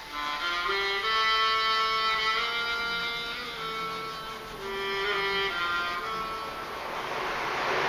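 Music: a solo violin playing a slow melody of long held notes. Near the end a rushing noise swells up under it.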